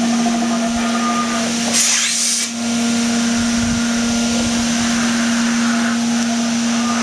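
Turbine blower of an HVLP paint-spraying unit running steadily, a constant hum with a whine of air through its hose. A brief hiss about two seconds in.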